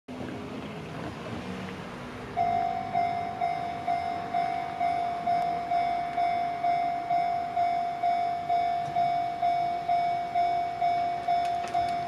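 Railway level-crossing alarm starting a couple of seconds in: an electronic bell tone struck about twice a second, each strike fading quickly, signalling that a train is approaching. Before it, a car drives across the crossing.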